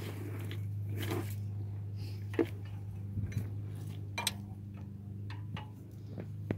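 Scattered metallic clinks and knocks of hand tools against engine parts around a Toyota RAV4's alternator, over a steady low hum.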